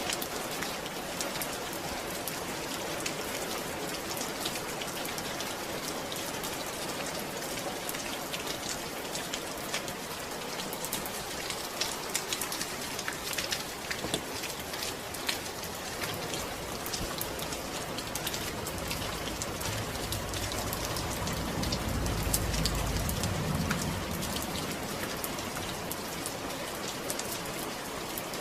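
Steady rain, a dense patter of drops falling on a surface. A low rumble swells and fades a little past the middle.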